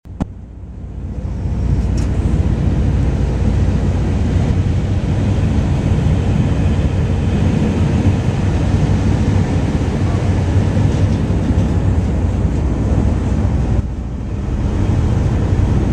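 Ferry's engine droning steadily under a rushing noise of wind and water on the microphone. The sound dips briefly about fourteen seconds in.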